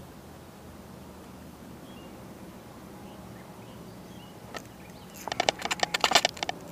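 Faint steady background hum with a few faint bird chirps; about five seconds in, a fast run of rapid clicking starts, the sound of a fishing reel being cranked in on a hooked fish.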